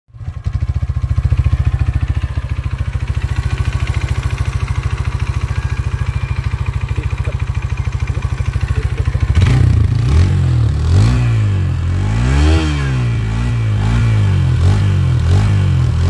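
Hero Xtreme 160R 4V's single-cylinder, four-valve engine heard at the exhaust: it idles with an even, steady beat, then about nine seconds in the throttle is blipped again and again, the note rising and falling with each rev.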